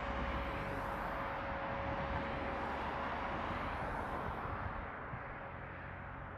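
Jet airliner's engines rushing with a steady whine, fading somewhat after about four and a half seconds.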